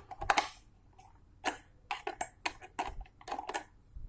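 Irregular metal clicks and clinks from a 10 mm spanner working loose the bolt that clamps an electric water heater's element.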